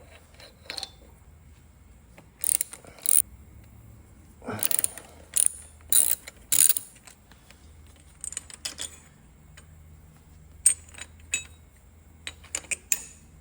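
Socket ratchet clicking in short bursts, with clinks of metal tools and parts, while fasteners are worked loose on a two-stroke dirt bike's engine.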